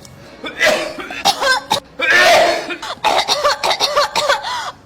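A person coughing over and over in a coughing fit, with the loudest cough about two seconds in and the later coughs voiced and wavering in pitch.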